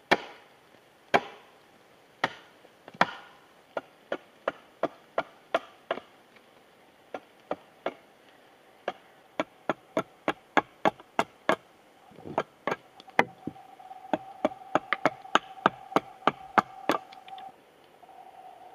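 A hatchet chops into a freshly cut green-wood stick, shaping a mallet handle. It opens with a few heavy blows about a second apart, then runs on as quicker, lighter strokes, about two to three a second.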